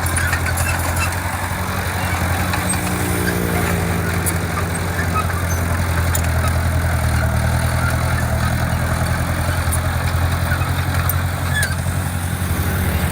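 Diesel engine of heavy construction equipment running steadily with a low hum. Its note shifts slightly about three seconds in and grows a little fuller around seven seconds, with faint scattered clicks over it.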